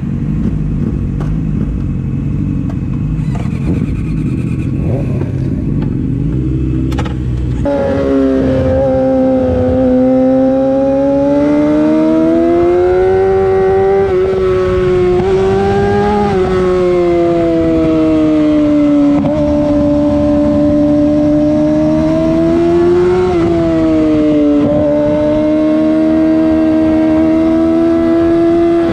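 Yamaha YZF-R6 inline-four running through a LeoVince full-system exhaust. For the first eight seconds or so it gives a low, rough rumble; after that comes a loud, high-revving note whose pitch rises and falls as the bike is ridden.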